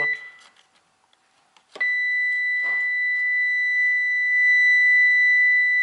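Electrical tester's continuity beep: a steady high-pitched tone that sounds briefly at the start, then comes on about two seconds in and holds. It shows a closed circuit on the ground wire being probed.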